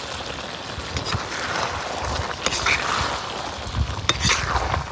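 Thick meat curry sizzling in a wok while a perforated metal spatula stirs it, with a few sharp clinks and scrapes of the spatula against the pan.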